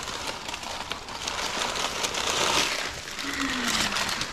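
Packaging rustling and crinkling as supercharger kit parts are dug out of a box and unwrapped, loudest about two seconds in.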